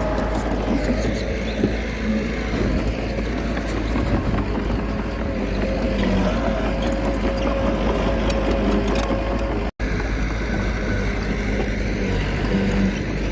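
Small bulldozer's diesel engine running steadily while working, with light clanking over it. The sound drops out for an instant about ten seconds in.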